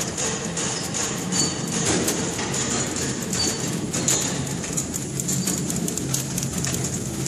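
Horizontal flow-wrapping machine running: steady motor hum under rapid clattering ticks from its conveyor and wrapping mechanism, with a short high squeak about every two seconds.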